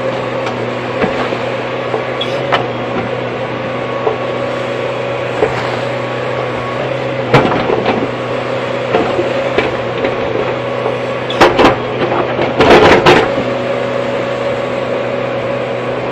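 Hydraulic excavator's diesel engine running at a steady pitch, with scattered knocks and clanks and a loud cluster of sharp bangs about three-quarters of the way through.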